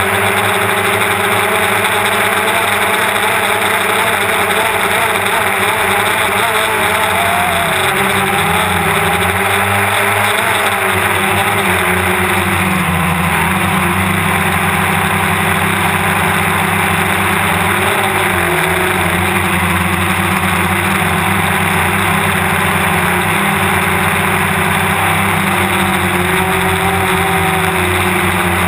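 DJI Phantom quadcopter's electric motors and propellers buzzing steadily in flight, recorded from on board, the pitch wavering slightly up and down as the motors change speed.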